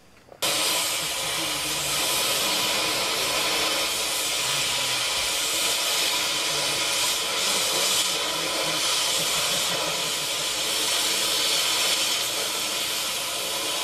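Oxy-fuel cutting torch hissing steadily as it cuts through steel, starting abruptly about half a second in.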